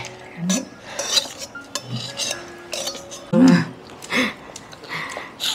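Spoon and chopsticks clinking and scraping against bowls as people eat, a metal spoon in a stainless-steel bowl among them, with a few short murmurs from a voice, the loudest about three and a half seconds in.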